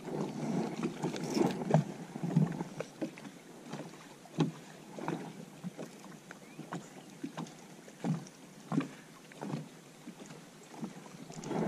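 Small waves lapping and slapping irregularly against the side of a boat's hull.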